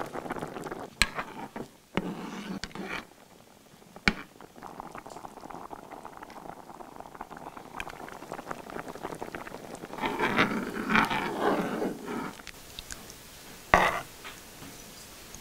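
Pot of fish soup bubbling as tofu cubes are slid in, then a few sharp clinks of a metal spoon, and a louder liquid stretch about ten seconds in as the soup is stirred.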